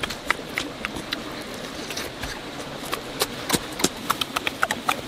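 Close-up eating sounds of raw tomatoes being chewed: irregular wet smacks and clicks of lips and mouth, several a second.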